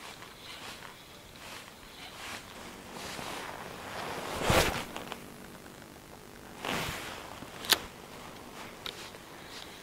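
Spinning-rod fishing tackle in use: a swish that builds to a peak about halfway, a second shorter swish, and a single sharp click near the end, over light rustling.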